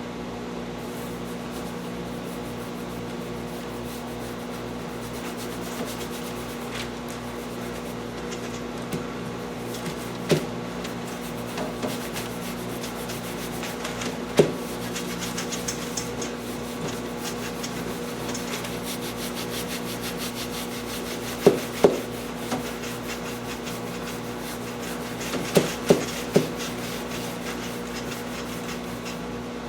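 Upholstery material being rubbed and smoothed by hand while an interior panel is wrapped, over a steady hum, with a few sharp clicks: a pair a little past the middle and three close together toward the end.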